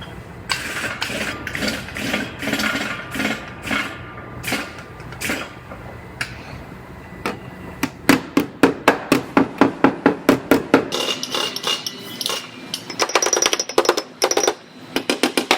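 Hammer blows on the steel of a car's quarter panel while a collapsed edge is pulled and worked out. Irregular knocks at first, then from about eight seconds in a fast, even run of strikes about four a second, then more quick blows with a ringing metal tone near the end.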